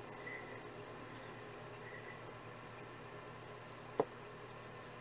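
Prismacolor soft-core coloured pencil shading lightly on paper: a faint, steady scratching. One short, sharp click sounds about four seconds in.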